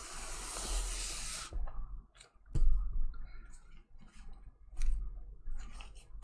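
Adhesive silkscreen transfer being peeled off its plastic backing sheet, a brief crackling hiss for about the first second and a half. This is followed by a few separate clicks and taps as the flexible plastic sheet is handled and laid down.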